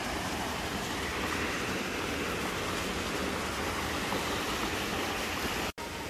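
Small waterfall and creek cascade rushing steadily into a pool. The sound cuts out for an instant near the end.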